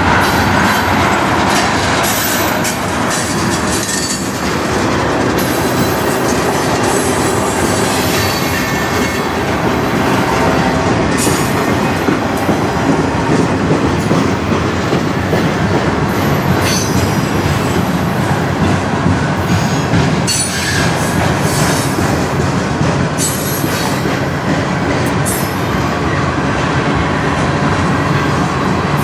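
Freight cars of a passing manifest train rolling by close at hand: a steady rumble of steel wheels on rail, with clicks over the rail joints and now and then a brief high wheel squeal.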